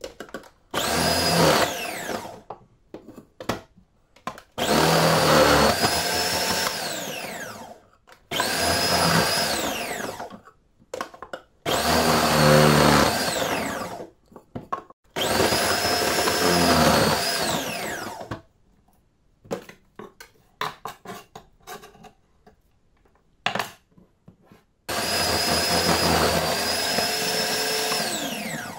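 Electric food processor pulsed six times, each burst of two to four seconds with the motor whine rising as it starts and winding down as it stops, chopping raw vegetables. A few small knocks sound in the longer pause before the last burst.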